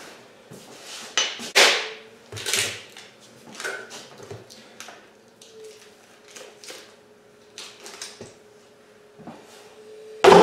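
A knife working through a deer's leg at the joint to take off the shank: scattered short knocks, cracks and scrapes as the leg is handled and cut, ending in one loud knock near the end.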